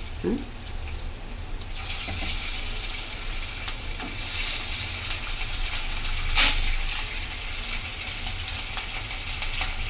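Flour-coated chicken pieces sizzling as they fry in hot oil in a pan; the sizzle grows louder about two seconds in and holds steady, with a single sharp knock about six seconds in.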